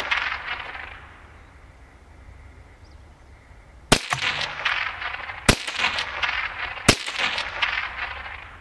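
CZ 512 semi-automatic .22 WMR rimfire rifle fired three times, about a second and a half apart, each sharp crack followed by a ringing echo that dies away. In the first second the echo of an earlier shot fades out.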